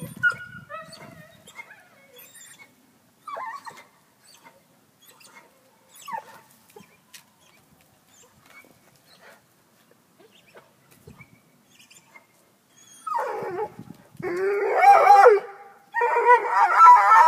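Black and tan coonhound giving a few faint, short whines, then about 13 seconds in breaking into three long, loud, wavering bays up the tree. This is the treeing bay, a coonhound's call that its quarry, here a cat, is treed.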